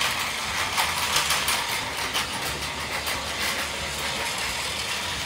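Battery-powered Plarail toy trains running on plastic track: a steady small-motor and gearbox whir, with light clicks of the wheels over the track joints in the first few seconds.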